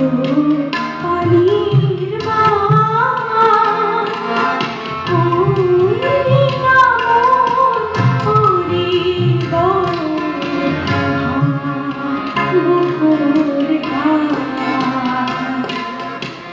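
Music: a gliding, ornamented melody over steady percussion.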